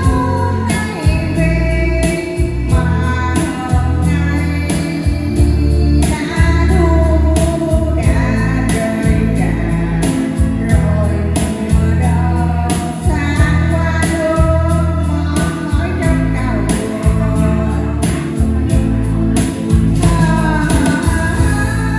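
A woman singing a Vietnamese song in long, held phrases over backing music with a steady, pulsing bass beat.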